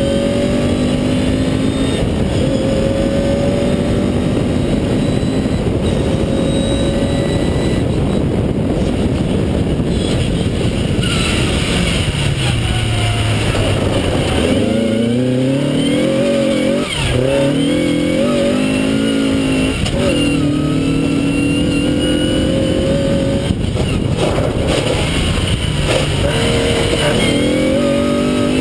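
Vauxhall Nova (Opel Corsa) 1.4SR rally car engine on motorcycle carburettors, pulling hard through the gears, each gear a rising note. About twelve seconds in the revs fall away as it slows for a bend, then it pulls through the gears again, over a steady rush of tyres on loose gravel.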